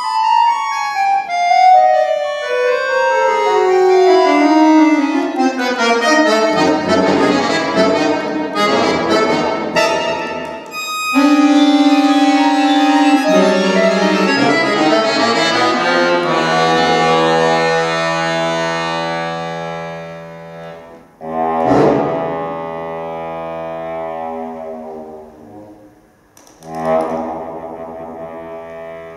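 Solo concert accordion playing contemporary music. A run of notes steps down in pitch, dense clusters of notes follow, then loud held chords fade away. Two sudden accented chords strike in the last third, each dying away.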